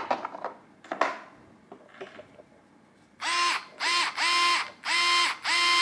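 A few light plastic clicks, then a Bosch GO 2 cordless screwdriver spinning a Phillips bit with no load in several short bursts, each whining up to speed and holding a steady pitch before stopping.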